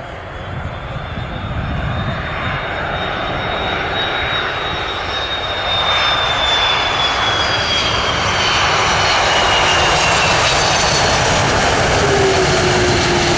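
An airliner's engines passing close, a rushing noise growing louder, with a high whine that falls slowly in pitch as it goes by and a lower falling tone near the end.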